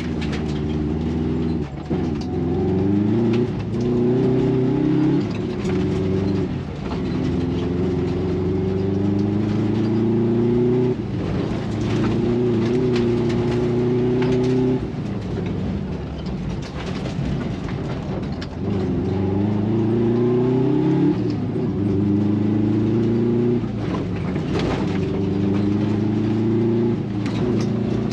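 Rally car engine heard from inside the cabin, driven hard through the gears on a gravel track: the engine note climbs steadily in each gear and drops sharply at each shift, several times over. Gravel and bumps knock and rattle under the car throughout.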